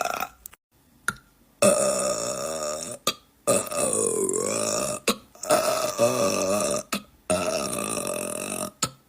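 A man burping: four long, drawn-out burps of about a second and a half each, with short pauses between them. The second one dips and rises in pitch partway through.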